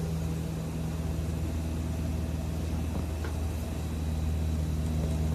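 A steady low mechanical hum, like a motor or engine running at an even speed, with a few faint ticks.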